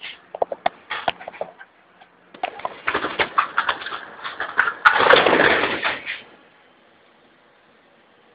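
Scuffling and rustling with scattered sharp taps as a pet teetar partridge is handled and strikes at a hand. The scuffle is loudest around five seconds in.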